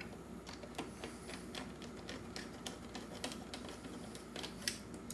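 Small screws being driven by hand with a screwdriver into the plastic chassis of a Roomba 700-series robot vacuum to hold a bumper sensor: a string of faint, irregular clicks and ticks, several a second.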